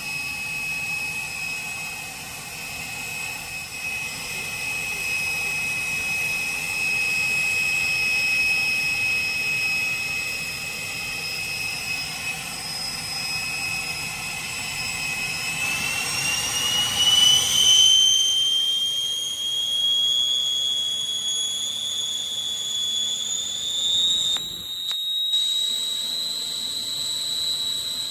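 Twin Turbomeca Marboré turbojets of a Morane-Saulnier MS.760 Paris, heard from inside the cockpit: a steady high whine that, about halfway through, rises in pitch over a few seconds as the engines spool up with the throttles advanced, then holds at the higher pitch.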